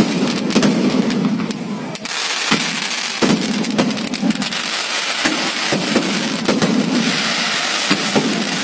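Aerial fireworks bursting overhead in quick succession: a continuous run of sharp bangs and crackles, several every second.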